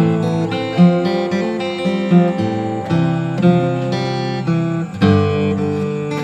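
Solid acoustic guitar with Makassar ebony back and sides being played as a sound test: chords and single melody notes ringing out, with a firm strum about five seconds in.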